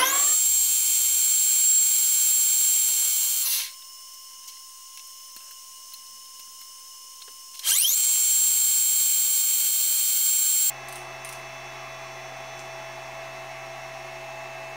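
Metal lathe turning a part between centres: a loud, high-pitched whine and hiss of the spindle and the cut, a quieter stretch with a single steady tone, then a rising whine as it speeds up into a second cut that stops abruptly. A lower steady hum follows near the end.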